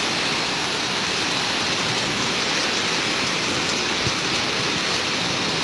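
Heavy hurricane rain falling steadily, an even hiss that does not let up.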